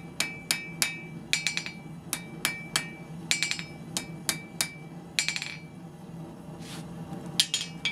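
Blacksmith's hammer striking hot iron on an anvil, flattening the end of a hook. The ringing blows come in quick runs of two or three, with a pause about six seconds in before a last few strikes.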